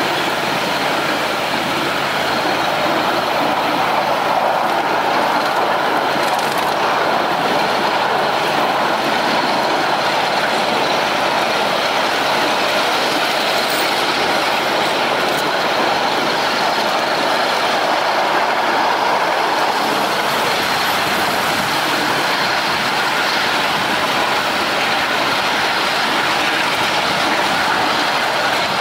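Miniature ride-on train running steadily along its track, heard from a riding car: a continuous rumble of the cars' wheels on the rails.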